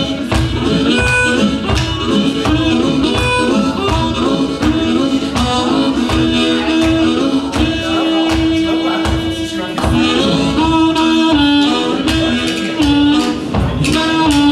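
Amplified blues harmonica, cupped against a bullet microphone, playing a solo of bent and held notes, with one long held note in the middle. A band keeps a steady beat underneath.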